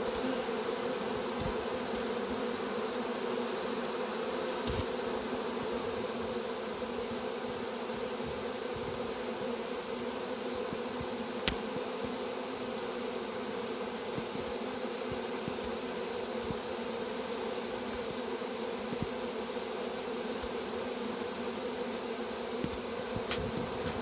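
Dense, steady hum of a honey bee swarm, many bees flying around and into a hive as the swarm moves in.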